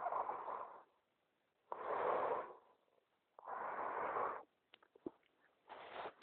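A man snoring: rasping noisy breaths, each about a second long, coming roughly every second and a half to two seconds, with a few small clicks between the fourth breath and the weaker last one.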